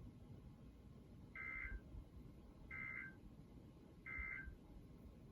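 Emergency Alert System end-of-message signal: three short bursts of two-tone digital data, evenly spaced about a second and a half apart, marking the end of the flash flood warning.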